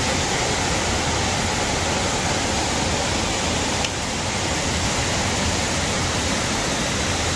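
Waterfall rushing steadily, an even roar of falling water, dipping slightly in level about four seconds in.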